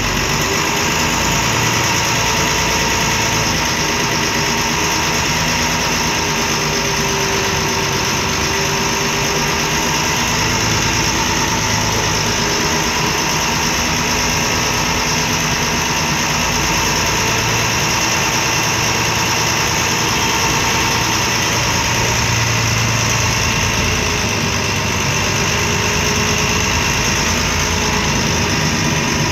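MAN D0826 LOH inline-six diesel of a MAN Lion's Classic city bus idling steadily, heard from inside the passenger cabin; noisy.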